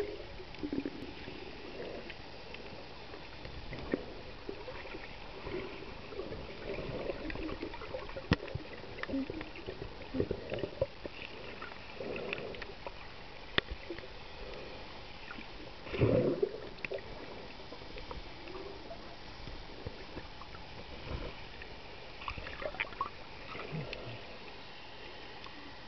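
Underwater ambience picked up by a submerged microphone: a steady muffled water hiss with scattered sharp clicks and short bubbling gurgles, and one louder gurgling rush about sixteen seconds in.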